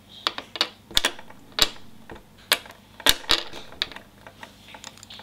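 Small hard plastic toy parts clicking and tapping against each other and the fingers as they are handled and fitted together, in irregular sharp clicks.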